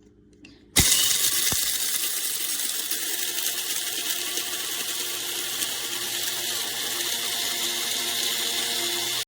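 Electric coffee grinder running: it starts suddenly about a second in and runs steadily, a dense whirring grind with a faint motor hum, until it cuts off abruptly.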